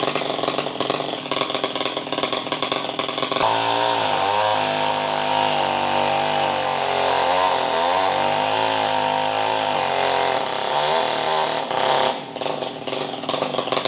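A tuned-up New West 588 two-stroke chainsaw, run without a muffler, cutting hard. Its engine note repeatedly sags and recovers as the chain bites, then drops off briefly near the end.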